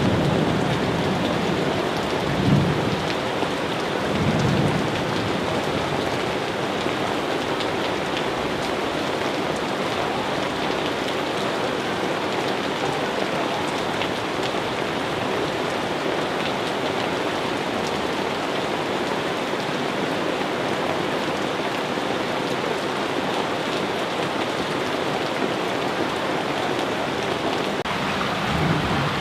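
Steady heavy rainfall, an even dense hiss, with two brief low rumbles a few seconds in.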